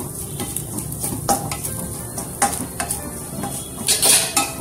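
Grated coconut frying in ghee in a stainless-steel pan, stirred with a spatula: irregular scrapes and knocks of the spatula on the pan over a steady sizzle, the loudest strokes near the end.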